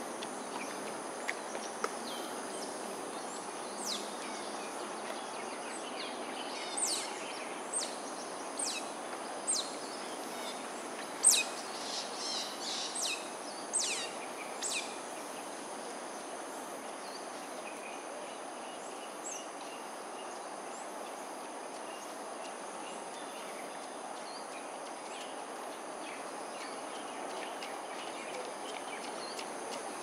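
Steady outdoor background hum under a thin, steady high insect drone. From about four seconds in to about fifteen seconds comes a series of sharp, high-pitched falling chirps, roughly one a second with a quick cluster near the middle, the loudest among them.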